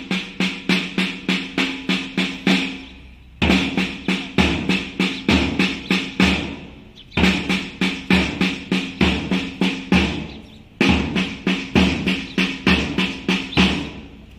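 Side drums beating a steady march rhythm, about four strokes a second, in repeated phrases of a few seconds with short breaks between them.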